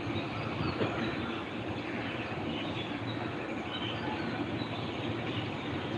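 Steady outdoor background hum with faint short high chirps scattered through it.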